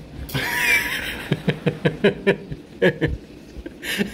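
A person laughing in a run of short, rhythmic bursts, about four a second, starting a second in after a brief rustle.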